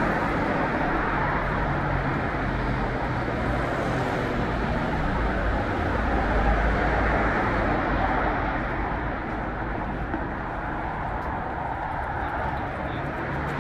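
Steady city street traffic noise: vehicles passing with a continuous low rumble and tyre noise.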